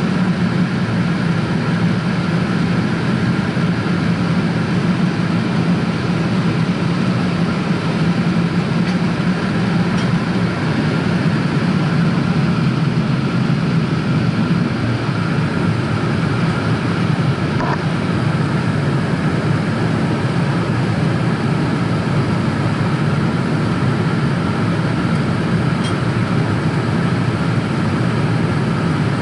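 Jet airliner cabin noise in flight: a steady, unchanging low rush of engine and airflow through the fuselage.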